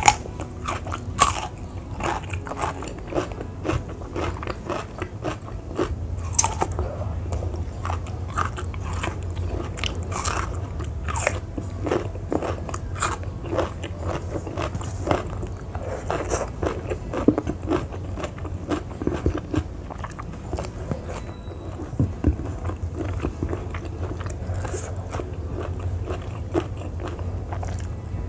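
Close-up eating sounds of crunchy raw vegetables being bitten and chewed: frequent irregular crisp crunches and wet chewing, over a low steady hum.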